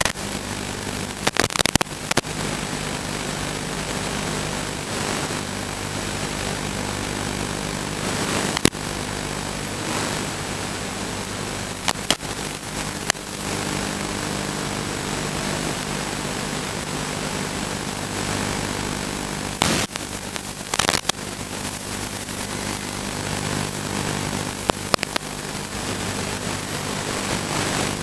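ZMR250 racing quadcopter's motors and propellers, heard through the onboard camera's microphone over the analog video link: a steady multi-tone buzz under a hiss of radio static. Several sharp crackles come through where the video signal breaks up.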